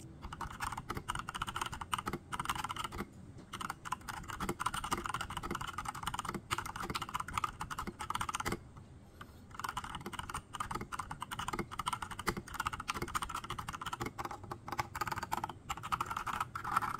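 Typing on a Robot Workmate I mechanical keyboard fitted with transparent ABS keycaps: a rapid run of key clacks, pausing briefly about halfway through.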